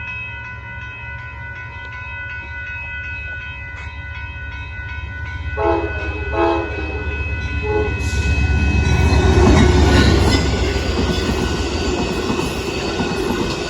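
Amtrak Texas Eagle passenger train approaching and passing a grade crossing: a steady ringing, likely the crossing bell, at first, then two short locomotive horn blasts about five and a half and six and a half seconds in, followed by the train's rumble and clatter as it goes by, loudest about ten seconds in.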